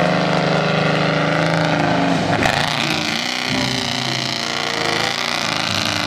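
A lifted mud-bogging SUV's engine running hard as the truck drives through a mud pit on oversized tyres. The engine note changes abruptly about two and a half seconds in.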